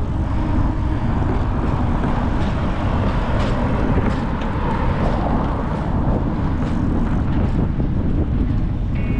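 Steady road and traffic noise mixed with wind rushing over the microphone while riding a bicycle along a street.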